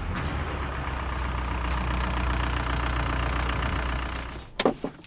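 A 2002 Volkswagen Beetle's TDI diesel engine idles steadily, then is switched off with the key about four seconds in. A few sharp clicks and rattles of the keys follow near the end.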